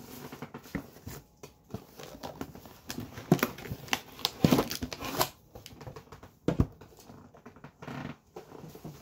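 Irregular knocks, taps and rustles of a packaged metal collector's tin being handled and set down on a wooden desk, with a few louder knocks near the middle.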